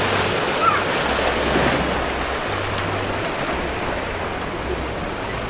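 Small ocean waves breaking over a shallow rocky reef and washing across the flat: a steady rush of surf.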